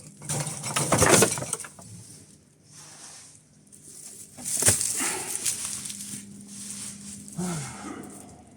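Leafy cut branches rustling and crunching in two bursts, with a sharp knock about halfway through.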